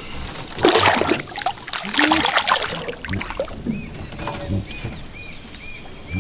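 Water splashing in two short bursts, then a bird repeating a short chirp about twice a second.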